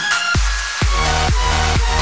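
Electronic dance music backing track: a steady kick-drum beat of about two beats a second comes in about a third of a second in, after a short break.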